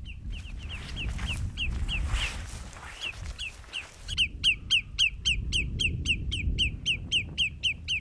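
An animal giving a rapid, steady series of short, high chirps, each sliding downward, about three to four a second. The chirps grow clearly louder about halfway through, over a low rumble.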